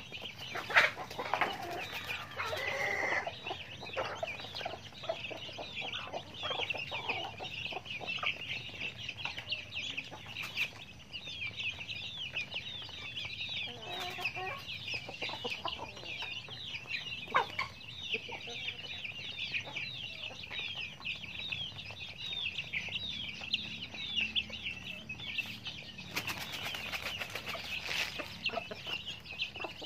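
Many young chicks peeping continuously, a constant chorus of short, high, falling cheeps. Adult hens cluck now and then over it, most loudly in the first few seconds.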